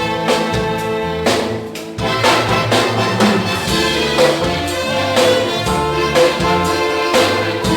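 Band and orchestra playing an instrumental passage of a gospel song with a steady beat; the music thins out briefly about a second and a half in, then comes back in full.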